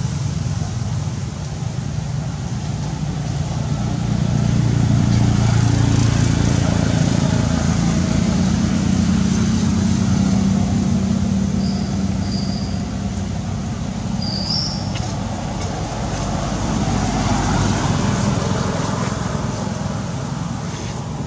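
Steady low rumble of a motor vehicle's engine, swelling a few seconds in and again around ten seconds, with a few short high chirps near the middle.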